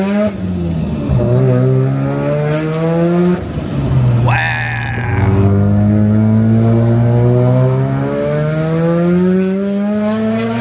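Mazda FD RX-7's 13B twin-rotor rotary engine with a big single turbo, accelerating hard through the gears: the engine pitch climbs steadily in each gear and drops at gear changes just after the start, about three and a half seconds in, and near the end. A faint, high, falling whistle follows the shifts, and there is a brief high squeal at about four and a half seconds.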